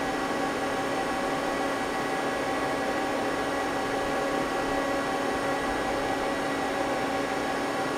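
Steady hum and hiss of running machinery with a few constant whining tones. It does not change throughout, and no cutting is heard.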